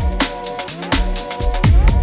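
Background electronic music with a fast beat and a deep bass line.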